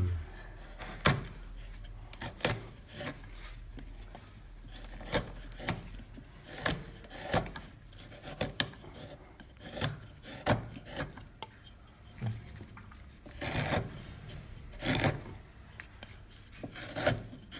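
Wood carving chisel pushed by hand through a block of wood, making short sharp scraping cuts at an uneven pace of about one a second, with a few longer slicing strokes late on.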